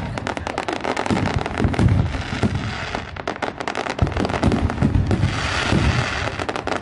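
Fireworks display in full barrage: aerial shells bursting in rapid, overlapping bangs and booms, easing off briefly about three seconds in before building again.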